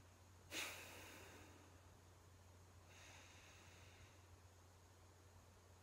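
A woman doing a deep-breathing exercise, breathing audibly. A sudden strong breath comes about half a second in and tails off over a second, a softer drawn-out breath follows around three seconds in, and another sudden strong breath comes at the very end.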